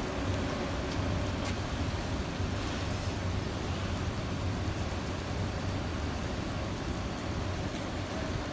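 Steady street traffic noise from a line of cars on an icy, slushy road, their engines running with a low hum.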